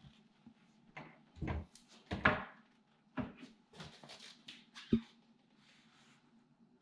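A kitchen cabinet door being handled and opened: a run of knocks and clunks, the loudest about two seconds in and another near five seconds.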